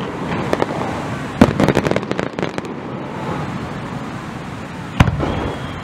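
Fireworks display: two sharp booms of bursting shells about a second and a half in and near the end, the first followed by a couple of seconds of crackling. Just after the second boom a long whistle starts and falls slightly in pitch.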